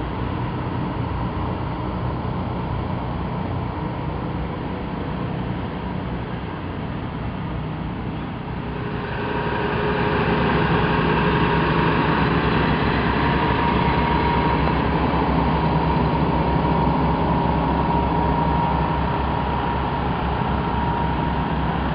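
Engines of farm vehicles running as they pass slowly in procession; about nine seconds in the sound grows louder as a large tractor drives past close by.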